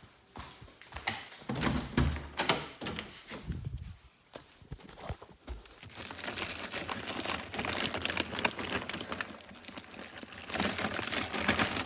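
Kitchen items being handled: a few knocks and clatters in the first seconds, then several seconds of steady rustling and crinkling.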